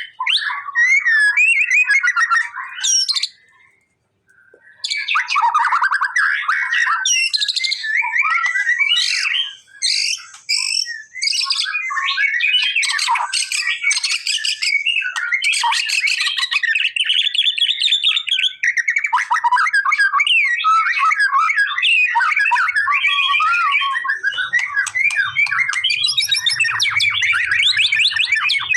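White-rumped shama singing a long, loud, rapid song of varied whistles, chatters and trills, broken by a short pause about four seconds in.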